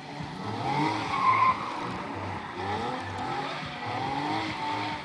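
Nissan 370Z drifting, its 3.7-litre V6 revving up and down in repeated rising glides as the tyres squeal and skid, loudest about a second in.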